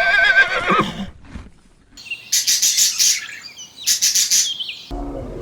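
Farm animal calls: a pitched call with a wavering pitch fades out about a second in. Two bursts of high, rapid bird chirping follow, and a lower animal call begins near the end.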